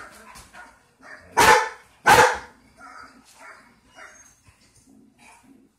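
A large dog barks twice, loudly and sharply, about a second and a half and two seconds in, followed by fainter, shorter sounds.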